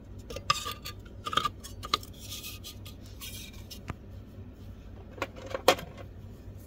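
Metal rear cover of a Denso alternator being fitted back over the rectifier end and fastened: scattered metallic clicks, clinks and short scrapes, the sharpest a little before the end.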